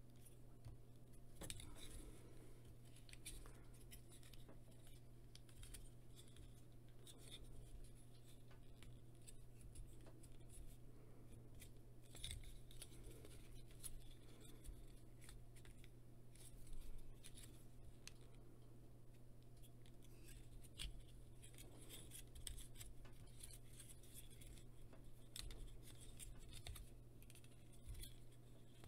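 Faint, irregular clicks and scrapes of a plastic Transformers Cyberverse Dinobot Slug action figure being twisted and snapped into place by hand, its stiff joints clicking as the parts are forced round.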